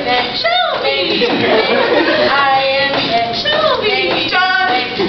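Several young voices singing a cappella in short, repeated chanted phrases with sliding pitches.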